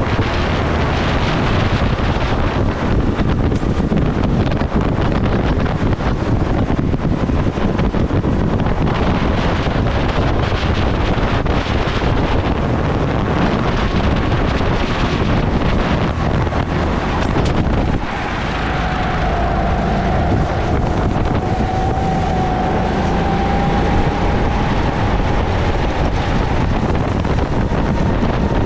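Racing kart's engine running at speed, with heavy wind noise on the onboard microphone. About eighteen seconds in, the sound dips briefly, then a thin whine slowly rises in pitch.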